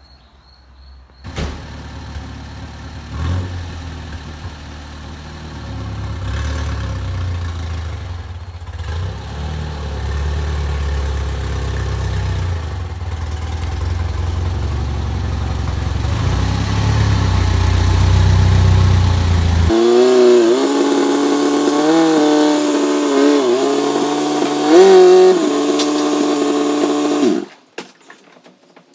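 Car engine running as a vehicle is driven into a garage bay, a low steady rumble that grows louder over about twenty seconds. It then gives way abruptly to a higher, wavering pitched tone that shifts in steps and cuts off shortly before the end.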